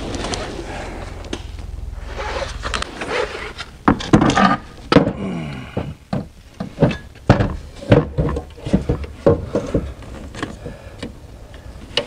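Clicks, knocks and rattles of an alternator being handled and fitted into the engine bay, metal parts bumping against the engine and brackets.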